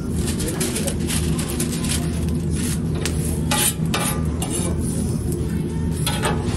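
Food sizzling on a hot flat steel griddle, with a few short bursts of metal scraping and clinking as a knife blade works across the steel. A steady low hum runs underneath.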